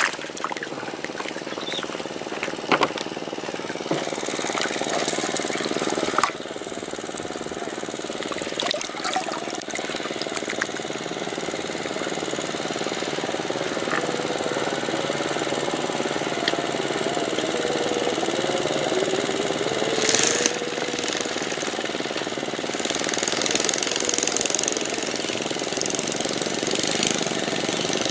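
A motor running steadily, with a few sharp clicks over it.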